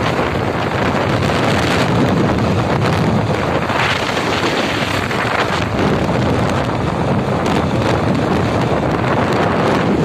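Loud, steady wind buffeting a phone's microphone while riding along a road at speed.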